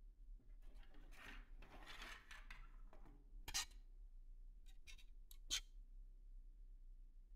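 Faint handling of 3D-printed plastic parts on a wooden table: a rustling scrape about a second in, then several sharp clicks of plastic knocking together, the loudest at about three and a half and five and a half seconds.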